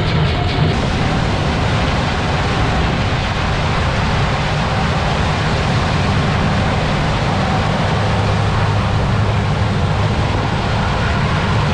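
Heavy farm machinery running steadily: a constant low engine hum under a broad mechanical rush, with no change in pace.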